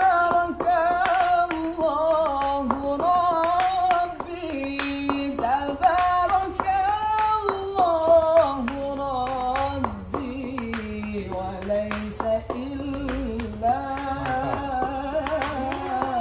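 A young man singing an Islamic sholawat solo, unaccompanied, in a long ornamented melismatic line that slides and wavers in pitch, with short sharp taps or claps scattered through it.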